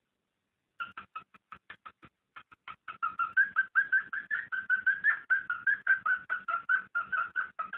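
Cockatiel mating call: a rapid run of short chirps, about six a second, starting about a second in and growing louder and steadier from about three seconds in.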